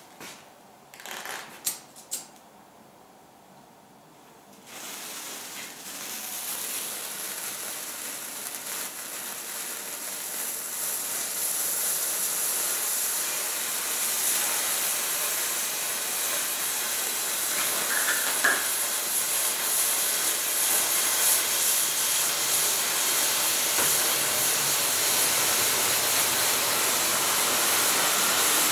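Loose gunpowder burning with a steady hiss that sets in about five seconds in and grows gradually louder, after a few short clicks at the start.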